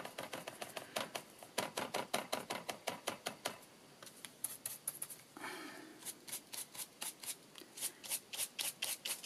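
Stiff bristle brush scrubbing white acrylic paint onto textured craft card by dry brushing, in quick back-and-forth strokes about four a second, with a short pause near the middle.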